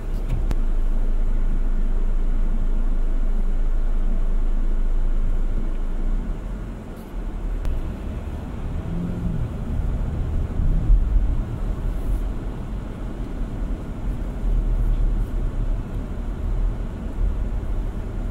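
Low rumbling noise inside a car cabin. It holds very even for about the first six seconds, dips briefly, then turns rougher and uneven.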